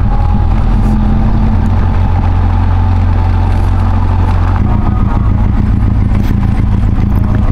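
Benelli TRK 502X parallel-twin motorcycle engine running steadily under way, heard from the rider's position with wind noise. Its low drone changes abruptly about four and a half seconds in.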